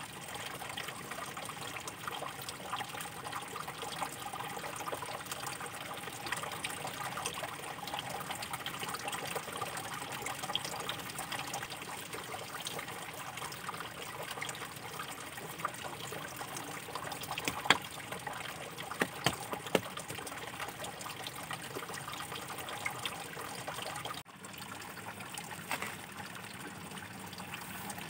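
Water running and trickling steadily while a garden is watered, with a few sharp clicks a little past the middle and a slight drop in level about three quarters of the way through.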